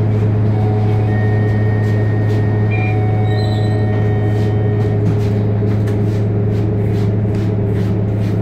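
A large vehicle engine idling close by: a loud, steady low hum, with a faint high whine in the middle seconds.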